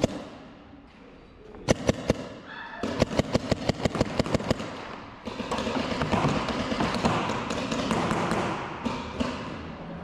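Paintball markers firing: three quick shots about two seconds in, then a fast string of shots lasting about two seconds. After that comes a steady noisy clatter with faint pops.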